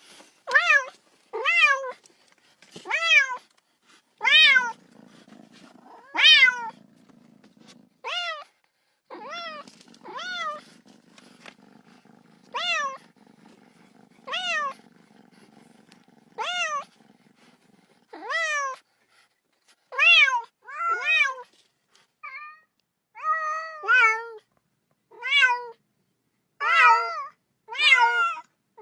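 A domestic cat meowing over and over, about twenty short calls that each rise and then fall in pitch, coming faster and more broken near the end. A low steady purr runs under the calls through the middle stretch.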